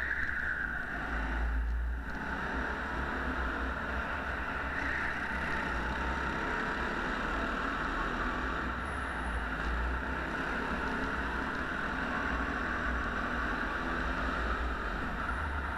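Go-kart driving at speed, heard from a camera mounted on the kart: a steady drone with a low rumble underneath.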